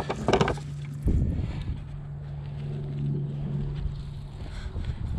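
Knocks and clicks of handling as pliers work a hook out of a bass's mouth, over a steady low hum.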